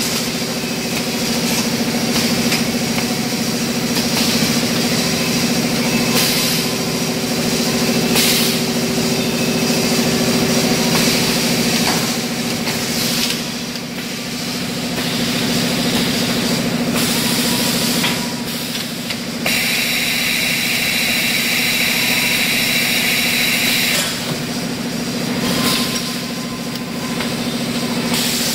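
Automatic pneumatic PVC conduit pipe bending and socketing machine running: a steady machine hum with repeated short bursts of compressed-air hiss from its cylinders, and one longer hiss of about four seconds past the middle.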